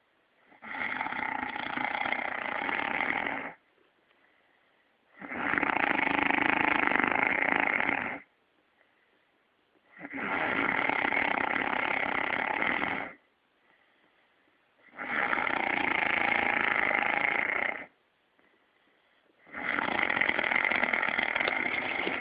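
A man snoring heavily: five long snores of about three seconds each, one every four to five seconds, with near silence between them.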